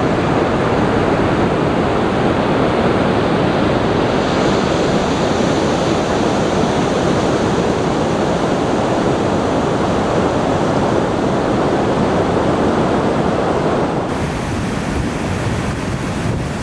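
Steady roar of rushing water. About fourteen seconds in it changes abruptly to a softer, duller rush.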